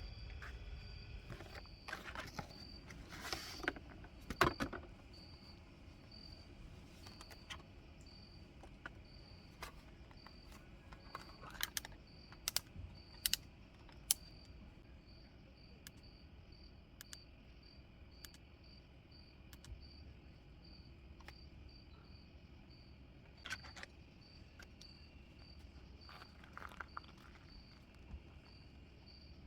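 Crickets chirping steadily at a high pitch, a little under two chirps a second. Scattered clicks and short rustles of handling come and go, loudest in the first few seconds and again about twelve seconds in.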